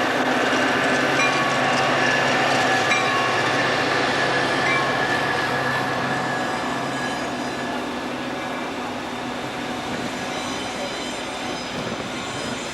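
Train rolling past, wheels and cars making a dense steady rumble with thin high squealing tones from the wheels. It grows gradually quieter over the second half as the train moves away.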